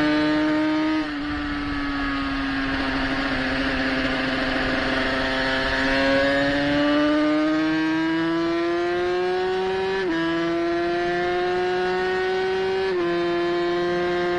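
350 cc racing motorcycle engine heard from on board at high revs: the note sags slightly about a second in, then climbs steadily for several seconds. It drops sharply with an upshift about ten seconds in and again just before the end, pulling on in the higher gear.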